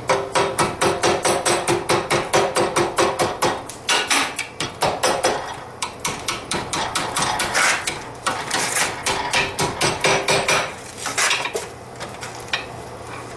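Hand hammer striking a red-hot steel bar against a round mandrel in a vise, curling the bar's end into a closed eye. Quick, regular blows at about four a second with a ringing tone under them give way to slower, lighter taps that fade near the end.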